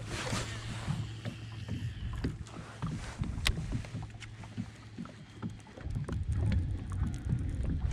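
A cast and retrieve from a fishing boat: a brief swish at the start, then scattered small reel clicks and water lapping at the hull over a low steady hum, with one sharper click about three and a half seconds in.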